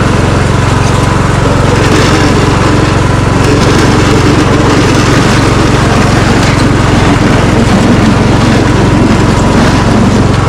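Riding lawn mower's small engine running steadily under load while the machine, rigged with a plow, pushes snow and ice.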